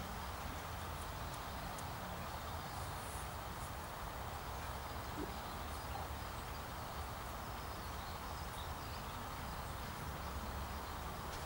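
Steady outdoor ambient noise with faint, scattered high ticks and chirps.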